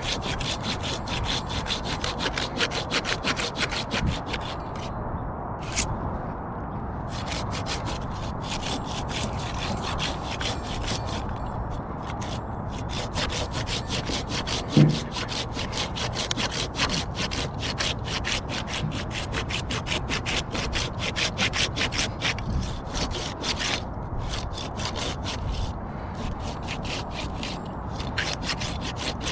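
Hand pruning saw cutting through a green conifer limb in fast, even strokes, pausing briefly twice. There is a single sharp knock about halfway through.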